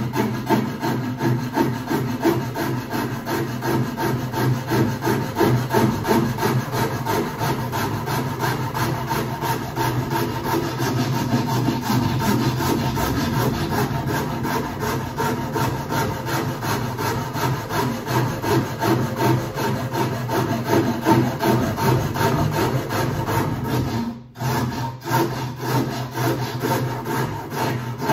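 Hand rasp filing a wooden snooker-table cushion rail in quick, even strokes, shaping the undercut back to a marked line. The strokes pause briefly near the end, then resume.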